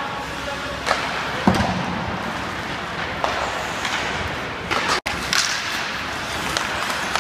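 Ice hockey play on a rink: skates scraping the ice, with sharp clacks of sticks and puck and a thud about a second and a half in. The sound cuts out for an instant about five seconds in.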